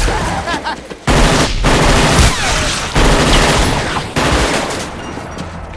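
Rapid automatic gunfire in several long, loud bursts with brief breaks between them, easing off near the end.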